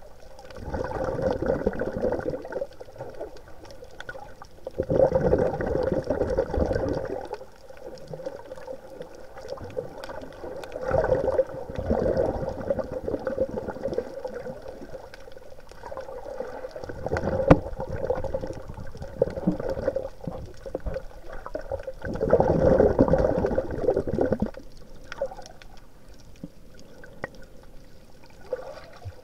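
Underwater breathing: bubbly, gurgling bursts of a swimmer's breaths coming regularly, each about two seconds long and about every five to six seconds, over a steady water hiss.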